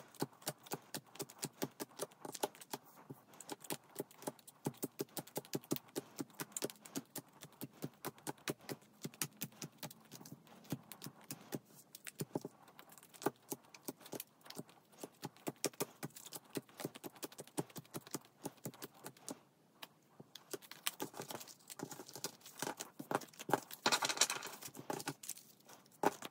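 Plastic-sleeved photocards being dealt down onto a table one after another: a run of light clicks and taps, about two or three a second. Near the end a louder flurry of clicking and plastic rustle as the stacks are handled.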